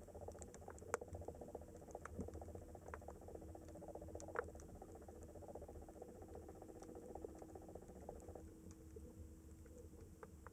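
Faint underwater ambience: scattered, irregular crackling clicks over a steady low hum, with a mid-pitched drone that drops away near the end.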